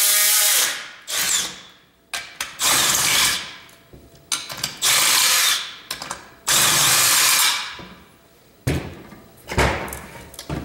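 Cordless brushless drill driving a half-inch socket, run in about five short bursts as it backs out the spring-loaded housing bolts of a cable TV line extender amplifier. Near the end, metal knocks and clunks as the cast aluminium housing lid is lifted open.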